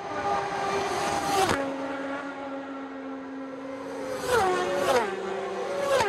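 Racing motorcycles passing at speed one after another, each engine's pitch dropping sharply as it goes by: one about a second and a half in, then three in quick succession near the end.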